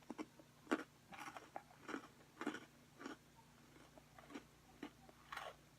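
Chewing Oreo cookies close to the microphone: soft, crackly crunches about twice a second.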